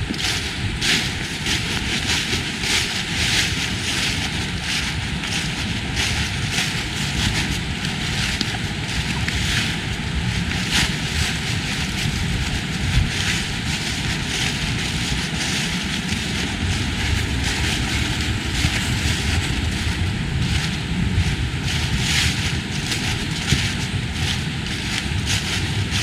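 Footsteps crunching on a leaf-strewn woodland path at a steady walking pace, about two steps a second, over a steady rushing background noise and low rumble.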